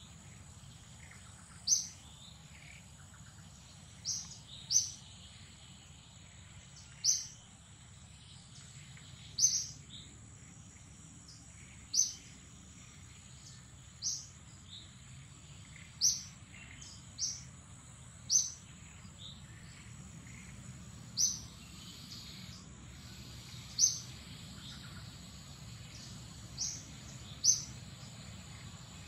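A bird repeating a short, high chirp every two seconds or so, over a steady high-pitched hum of insects.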